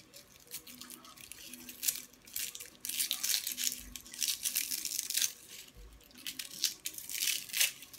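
Fresh spring onions being cut in the hand with a knife: a run of irregular short crackles and tearing snaps as the blade goes through the stalks.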